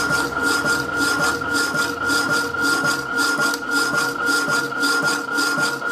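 Rapidor power hacksaw sawing through a steel flat bar, the blade rasping back and forth in a steady, even rhythm of strokes. A steady high tone runs underneath.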